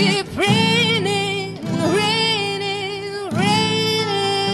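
A woman sings about three long held notes, scooping up into each one, over a strummed acoustic guitar.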